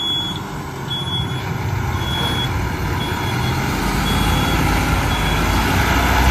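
Fire truck's backup alarm beeping about once a second, the beeps growing fainter, as the American LaFrance Eagle tower ladder truck reverses; its engine rumble grows louder near the end as the cab draws close.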